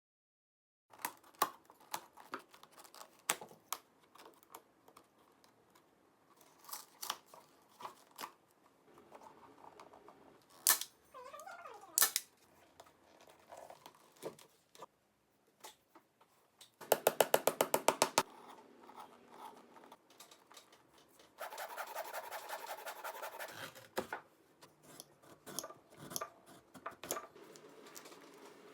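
Junker & Ruh SD28 sole-stitching machine sewing a boot's outsole in two short runs of rapid, even stitching strokes past the middle, with scattered clicks and knocks of handling the boot and machine before and between them.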